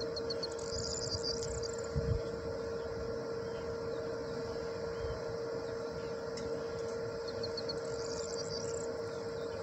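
A steady hum holding one pitch throughout, with a songbird singing a short phrase twice, about half a second in and again near the end, and a single low thump about two seconds in.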